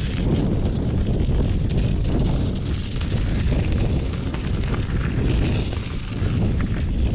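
Wind buffeting the microphone of a camera on a moving bicycle, a steady low rumble, with scattered small clicks and rattles from the bike rolling over a snowy dirt track.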